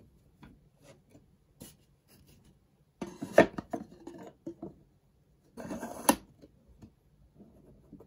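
Small wooden tabletop easel being handled and a wooden board set onto it: a few light wooden clicks, then two stretches of wood sliding and scraping against wood, about three seconds in and again about five and a half seconds in, the second ending in a sharp knock as the board seats.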